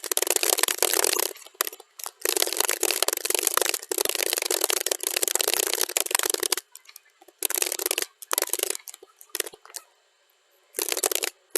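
Computer keyboard typing, sped up to double speed, so the keystrokes run together into dense rapid clicking. It comes in long runs broken by short pauses, about a second and a half in, after about six and a half seconds, and for about two seconds near the end.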